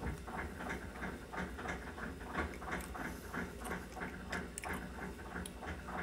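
Steady mechanical ticking, about four even ticks a second.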